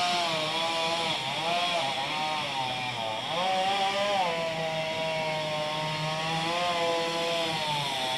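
Two-stroke chainsaw carving a palm-tree trunk, running continuously with its engine pitch rising and falling every second or so as the throttle is worked, holding steadier for a few seconds in the middle.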